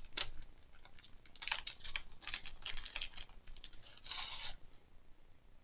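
Packaging being handled: a run of small clicks, taps and plastic crinkling as items are sorted and a clear plastic sleeve of incense sticks is pulled out. A longer rustle comes about four seconds in.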